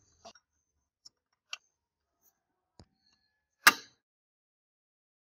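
Small clicks and taps of tweezers and small parts against a model car body as pieces are fitted: a few faint ticks, then one sharp click about three and a half seconds in.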